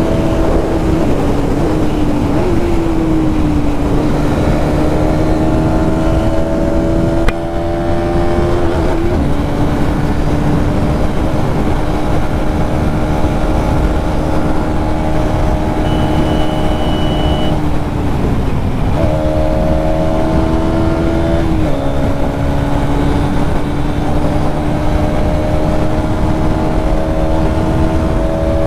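Hero Xtreme 250R motorcycle's single-cylinder engine running under way at a steady pitch, changing pitch in sudden steps a few times as gears are shifted. A sharp click sounds about seven seconds in.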